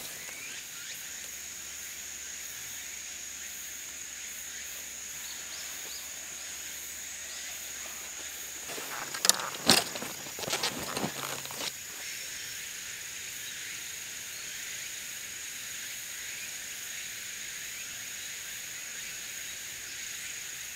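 Woodland ambience: a steady high-pitched insect buzz over a soft hiss. Halfway through comes a short run of knocks and rustles as camping gear, a foam sleeping pad on a backpack, is handled.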